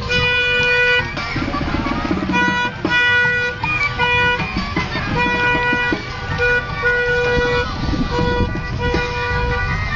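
A car horn honking again and again in short and long blasts, all on the same pitch, over the low rumble of moving vehicles.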